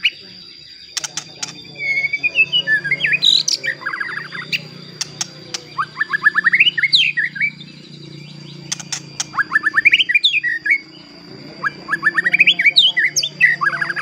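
White-rumped shama singing in about four phrases of rapid whistled notes and quick rising runs, with pauses of about a second between them. A steady high tone runs underneath.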